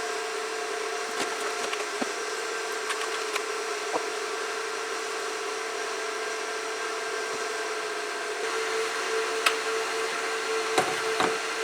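Gigabyte R180-F34 1U rack server's cooling fans running steadily at low speed, a whirring hum with a whine that grows stronger about eight seconds in, while the server sits powered on waiting for its chipset to initialize. A few light clicks sound over it.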